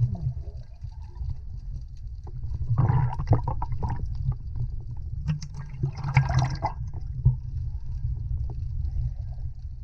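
Underwater sound through a submerged camera: a steady muffled low rumble of moving water, with two short noisy water bursts about three and six seconds in and a few scattered clicks.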